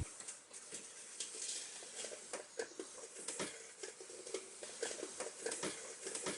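Faint, irregular small clicks and light taps of handling, with no steady machine sound.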